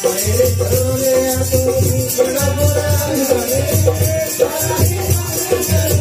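Amplified folk song: a man's voice sings a wavering melody through a microphone over a steady, repeating beat and rattling, shaker-like percussion.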